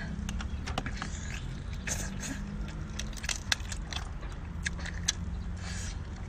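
Cooked crab shell being cracked and pulled apart by hand, with scattered sharp cracks and crackles and some sucking and biting near the end, over a steady low hum.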